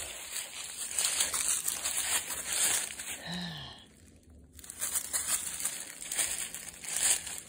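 Footsteps crunching and rustling through dry fallen leaves and undergrowth, pausing briefly a little past the middle.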